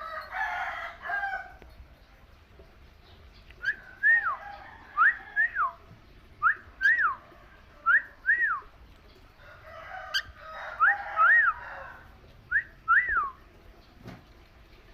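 Cockatiel whistling: a run of clear whistled notes, each rising then falling, mostly in quick pairs. A burst of rough, noisy chatter comes at the start and again about ten seconds in.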